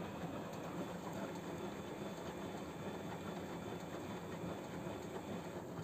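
Samsung WF0800NCE front-loading washing machine running its drum-clean cycle, the drum turning with a steady motor hum.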